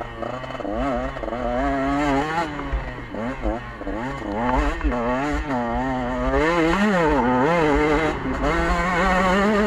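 KTM 125 two-stroke enduro motorcycle engine heard from on board, revving up and down again and again as the rider works the throttle and gears, then holding higher revs near the end.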